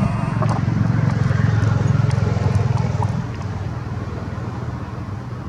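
A motor vehicle's engine running close by: a low, steady drone that grows louder over the first couple of seconds, then fades after about three seconds.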